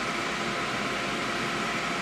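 Steady whirring of a fan or blower, with a few faint steady tones running through it.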